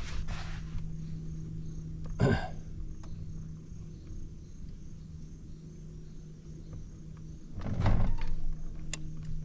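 Two knocks on a kayak hull, a short sharp one about two seconds in and a louder, longer thump near the end, over a steady low hum.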